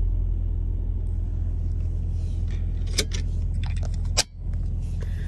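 Steady low rumble of an idling semi-truck engine heard inside the cab, with a couple of sharp knocks about three and four seconds in as the phone is handled.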